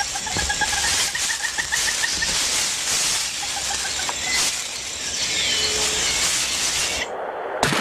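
Rainforest ambience: a dense hiss of insects and rustling foliage, with a bird giving a rapid series of repeated pips during the first couple of seconds. Just before the end, after a brief drop-out, comes one sharp loud knock.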